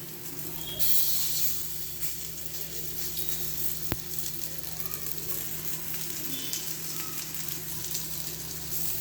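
Moong dal tikkis shallow-frying in a little oil on a hot tawa: a steady sizzle that grows louder about a second in, with a single sharp click near the middle.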